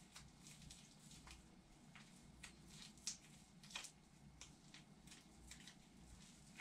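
Near silence with faint, irregular rustles and soft clicks of nitrile-gloved hands rolling up a fabric cast sock.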